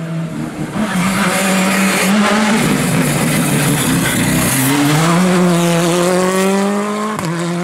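A rally car's engine runs hard through a bend with a rough, noisy scrabble from the tyres. The car then accelerates away with the engine note climbing steadily, and there is a brief break in the note near the end.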